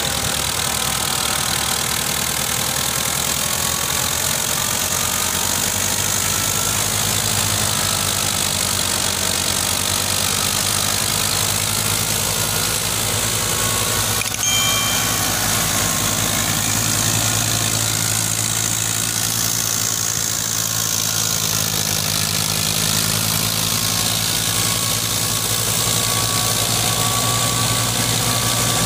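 Fiat 640 tractor's four-cylinder diesel engine running steadily under load, powering a wheat thresher, with the thresher's steady noise over the engine. One short knock about halfway through.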